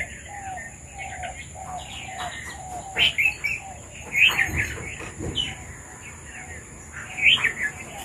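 Red-vented bulbuls calling in short, bright chirping phrases that come in several separate bursts. A lower short note repeats underneath during the first few seconds.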